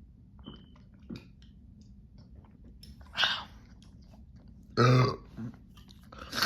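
A loud burp about five seconds in, with short clicks and a breathy mouth noise before it.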